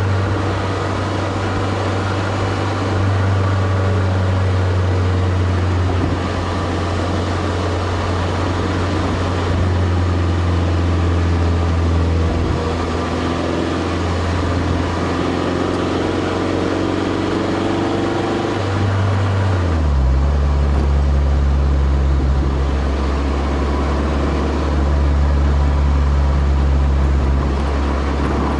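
2003 Toyota MR2 Spyder's 1ZZ-FED 1.8-litre four-cylinder running through a Powerhouse Amuse Titanium Extra titanium cat-back exhaust, heard close to the tailpipe. It makes a steady, deep low note that drops to a lower pitch about two-thirds of the way through.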